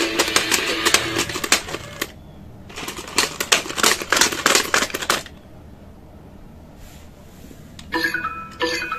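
Two Fisher-Price Crawl with Me Puppy toys crawling on a tile floor: rapid plastic clicking and clattering from their motorised crawling mechanisms, in two runs that stop about five seconds in. Near the end, a press on a collar button sets one puppy playing electronic tones.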